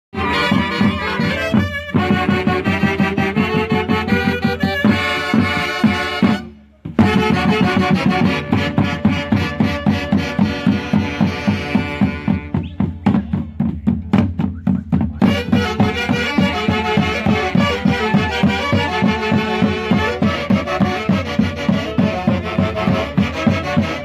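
A central Peruvian orquesta típica playing: saxophones and clarinets carry the melody over violin and Andean harp, with drums keeping a steady beat. The music cuts out for a moment about seven seconds in, then carries on.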